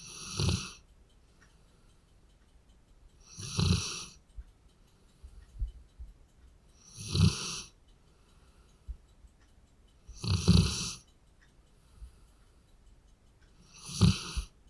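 Labrador dog snoring: five snores, one about every three and a half seconds.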